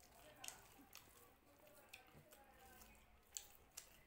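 Faint eating sounds of fingers mixing rice on a metal plate, with a few short, sharp, wet clicks.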